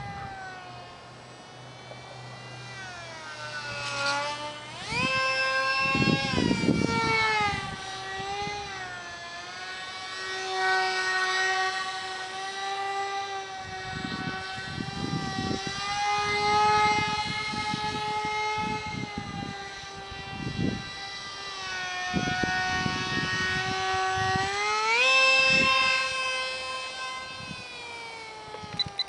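Small electric motor of an ultra micro RC jet whining in flight. The pitch holds mostly steady but wavers with throttle, and climbs sharply twice: about five seconds in and again near twenty-five seconds.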